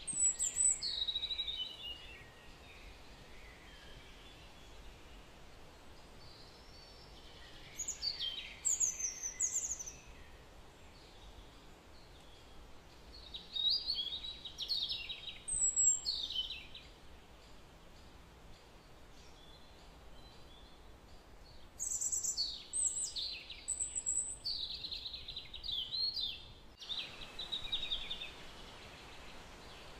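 A bird singing in several bursts of high chirps that slide downward in pitch, over a steady hiss.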